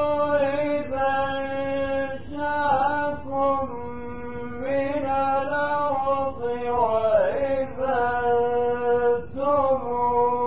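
A male Quran reciter chanting in melodic tajweed recitation: long held notes that slide between pitches with ornamental turns and wide swoops, with short breaks between phrases.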